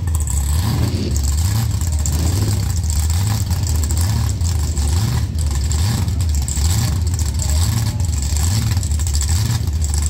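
Chevrolet Camaro's engine held at high revs through a burnout, the note swelling and easing about once a second over a steady hiss.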